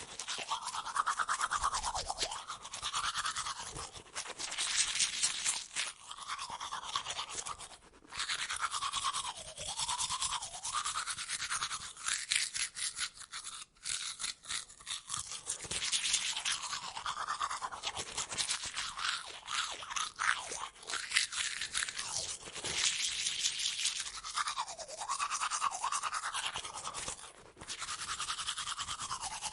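Toothbrush scrubbing teeth: a continuous run of quick bristle strokes whose hiss keeps sweeping up and down in tone, broken by a few short pauses.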